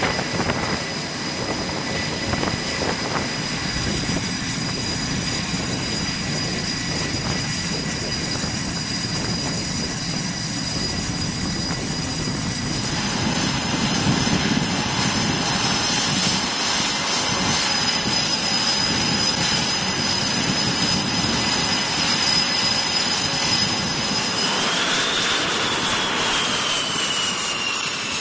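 Jet engines of F/A-18 fighters running on a carrier flight deck: a steady rushing noise with a high turbine whine. The sound changes character about halfway through, and near the end a whine rises briefly, then slowly falls in pitch.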